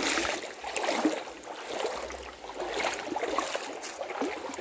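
Shallow creek water splashing and sloshing around wading feet, in irregular surges about once a second.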